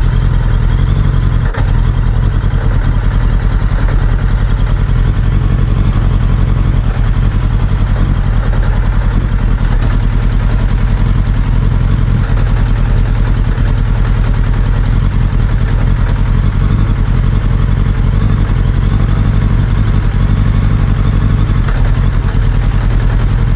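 Suzuki Bandit 1200's inline-four engine idling steadily.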